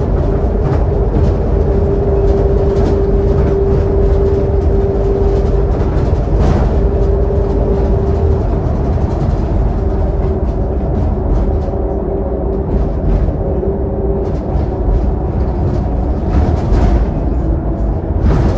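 Scania K280UD double-decker bus cruising at highway speed, heard from inside the lower deck: a steady engine and road rumble with a high steady whine running through it that grows fainter after about eight seconds.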